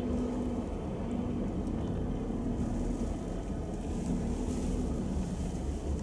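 Steady low rumble of vehicle engines and tyres on a snow-covered road, heard from inside a car following a snowplow truck, with a light hiss rising in the middle.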